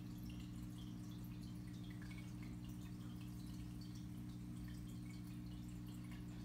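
Aquarium running: a steady low hum from the tank equipment, with faint scattered drips and bubbling of water.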